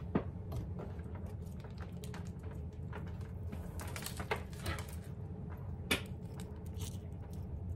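Scattered small clicks and light rattling as a metal necklace chain is picked up and handled, with one sharper click about six seconds in, over a low steady hum.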